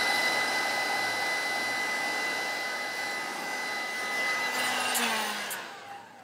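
Handheld heat gun blowing hot air with a steady whine. It is switched off about five seconds in, and its fan winds down with a falling pitch.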